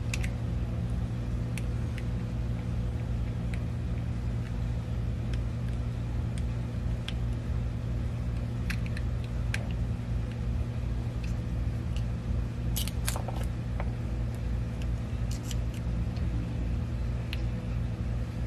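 A steady low hum with light, scattered clicks and taps of clear plastic tank parts being handled and pressed together. A quick cluster of sharper clicks comes about 13 seconds in.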